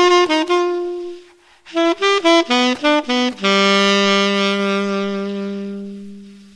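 1923 silver-plated Buescher True Tone C-melody saxophone with a metal Otto Link mouthpiece, played solo. A held note fades, then after a short gap comes a quick run of notes. The tune ends on a long low note that slowly fades out.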